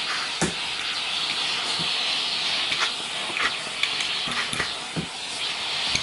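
Bosch GS-50 ProSilence cylinder vacuum cleaner running with its hose nozzle held up, a steady airy hiss of suction with a few light knocks.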